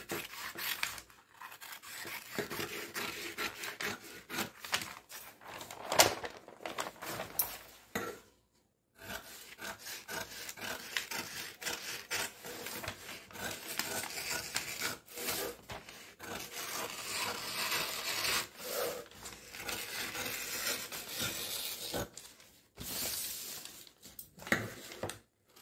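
Dressmaking scissors cutting through stiff brown kraft pattern paper, a steady run of snips with the paper rustling and rubbing. There is one sharper click about six seconds in and a brief pause about a third of the way through.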